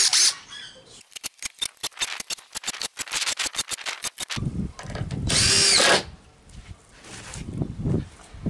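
Power drill at work on the shed's timber base. It starts with a fast run of clicks, about nine a second, for roughly three seconds, then settles into a noisy rumble with a short louder run of the motor about five seconds in.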